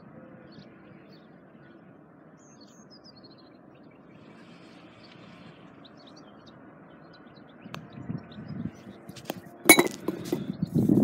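Light outdoor wind noise with a few small birds chirping. Near the end a sharp click, then scraping and rubbing right on the microphone as the phone lying on the grass is handled.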